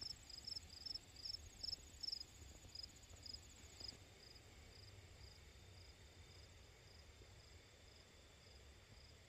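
Faint insect chirping: short high chirps repeating about three times a second, weakening after about four seconds.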